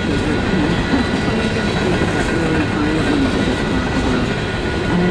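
Empty coal train's hopper cars rolling past at a level crossing, a steady loud rumble of steel wheels on the rails.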